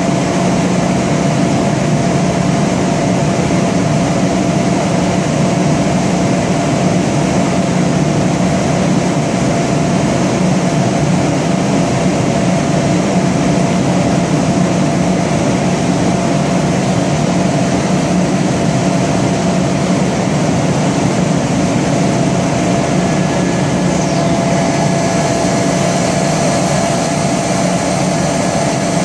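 Kaeser CS 121 100 hp rotary screw air compressor with a rebuilt airend, running steadily with a constant whine over a dense mechanical hum. Its sound shifts slightly near the end as the compressor goes from idling unloaded to running on load.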